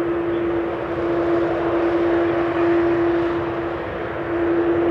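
Boeing 747-8F's four GEnx turbofan engines running at low ground power as the freighter taxis: a steady engine sound with one strong held tone over a rushing noise, swelling a little near the end.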